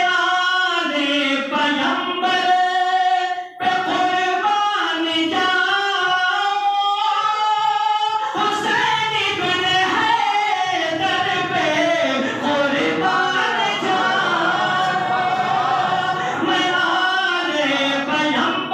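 A qari's melodic religious chanting into a microphone: one man's voice holding long, ornamented notes, with a brief break about three and a half seconds in.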